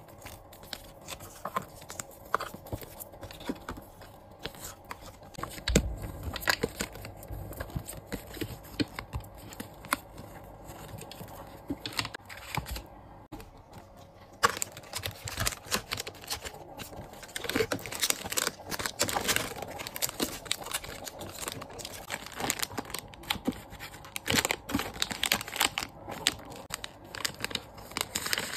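Paper cards and plastic sticker packets being handled and sorted: light taps, shuffling and crinkling of plastic wrap, with a soft knock about six seconds in. The rustling becomes busier and louder about halfway through.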